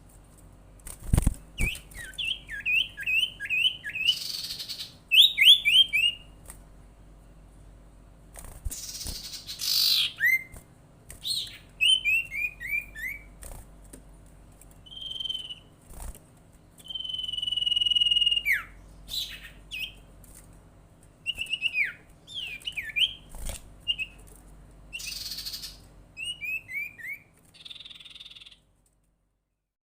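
Sirtu, a kind of cipow (iora), calling: quick runs of short descending whistled notes, one long held whistle that drops at its end, and harsh rasping calls in between.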